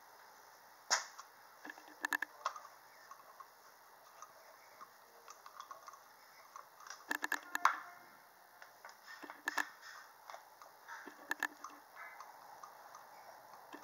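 About six short clusters of sharp metallic clicks, irregularly spaced a second to several seconds apart, over faint background hiss, during a compression test of cylinder one on a removed Opel Z16XEP 1.6-litre engine.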